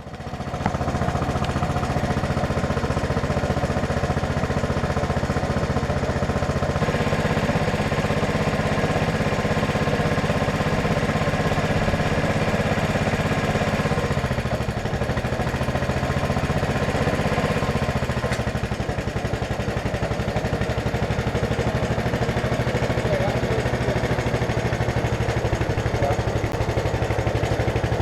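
An 11 hp Honda single-cylinder engine powering a Case 700 garden tractor, running steadily under load while the tractor drives slowly in first gear on its new, larger belt pulley. Its note shifts slightly about halfway through.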